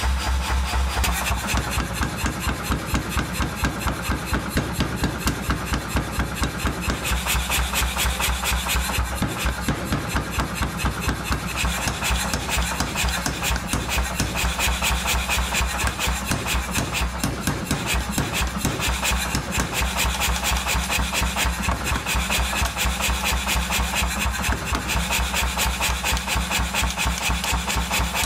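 Power hammer pounding a red-hot steel billet in rapid, even blows, several a second, over a steady low hum from the machine. This is hot forging, drawing out the blank for a kitchen knife.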